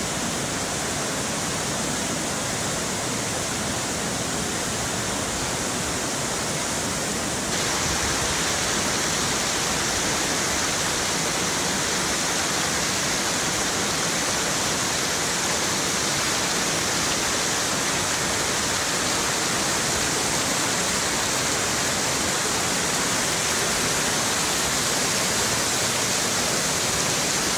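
Whitewater rapids rushing steadily over rocks. About seven seconds in, the rush jumps to a slightly louder, brighter sound.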